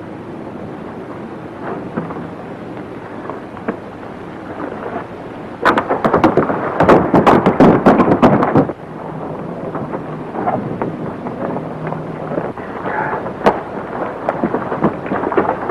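A rapid volley of gunshots from several guns, lasting about three seconds, starting about six seconds in, with single shots a few seconds before and after it.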